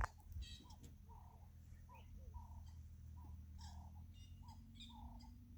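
Faint bird calls: a low call repeating about twice a second, with clusters of higher chirps over it.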